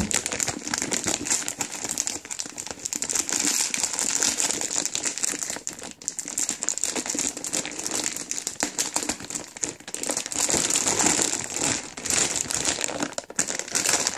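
Clear plastic packaging crinkling and rustling without a break as hands unwrap it and pull it off.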